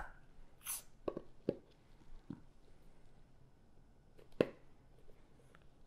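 Metal pipe-tobacco tin being pried open: a few faint clicks and scrapes, a short hiss under a second in, and one sharper click about four and a half seconds in.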